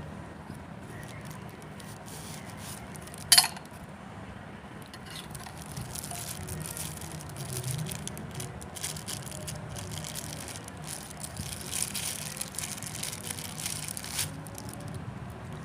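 Handling noises from unboxing a wristwatch: rustling and small clicks, with one sharp click about three seconds in, over a steady low hum.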